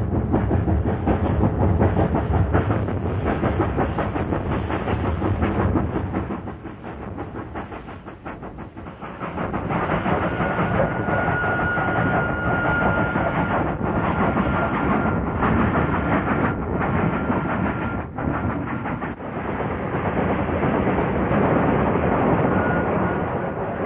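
A steam locomotive and its train running past, with a dense rush of exhaust and steady rail clatter. The sound fades for a few seconds partway through, and a thin steady high tone runs through the middle stretch.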